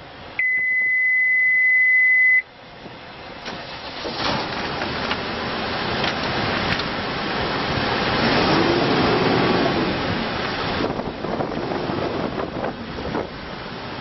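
A dashboard warning buzzer gives one steady two-second beep at key-on. Then the 2013 Case 580N backhoe loader's diesel engine cranks, catches and runs, rising and falling briefly in pitch partway through.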